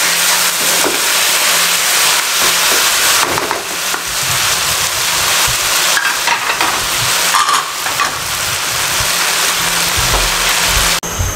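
Chicken jalfrezi with onions, capsicum and tomatoes sizzling steadily over high heat in a non-stick wok, with a wooden spatula stirring and scraping through it in short clicks.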